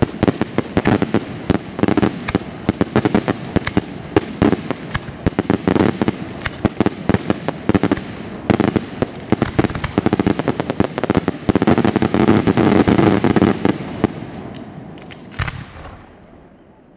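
Daylight fireworks barrage: a dense, rapid run of aerial bangs and crackles that dies away about fourteen seconds in, with one last bang shortly after.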